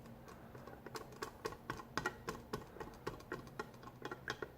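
Stirring glue into water in a cup, the stirring stick or spoon making quick, irregular light clicks and taps against the cup, several a second.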